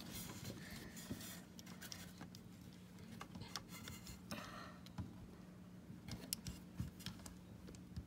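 Small plastic LEGO pieces being handled and pressed together: faint, scattered clicks and taps over a steady low hum.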